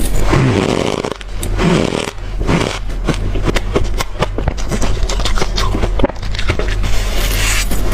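Someone chewing a spoonful of hard, frozen crushed ice: squeaky crunching bursts in the first two seconds, then a long run of sharp, crackling crunches, with another crunching burst near the end.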